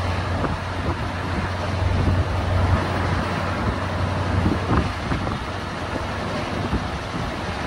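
Steady engine drone and road noise of a ladder truck, heard from inside its cab while driving.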